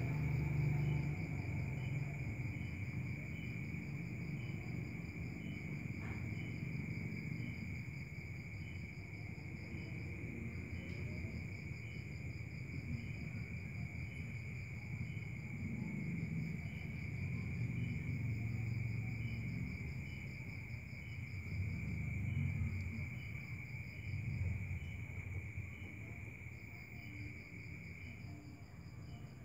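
Crickets trilling steadily at night, a continuous high trill with faint short chirps repeating about once a second over it, and a low uneven rumble underneath.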